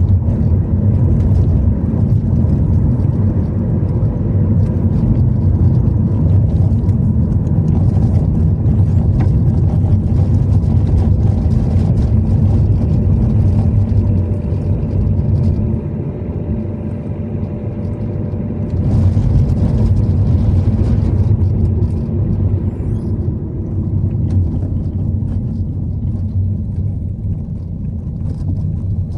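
Steady low rumble of a car driving, road and engine noise, easing off a little a couple of times.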